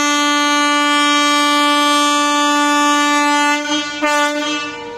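Electric locomotive's air horn sounding one long steady blast, which breaks off after about three and a half seconds and sounds again briefly. Near the end a fainter, higher steady tone carries on.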